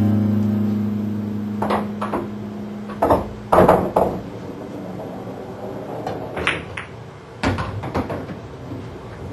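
Pool balls clacking during a fast run: about ten sharp clicks of cue tip on cue ball and ball on ball, coming at uneven gaps of a fraction of a second to a few seconds. A held music chord fades out during the first few seconds.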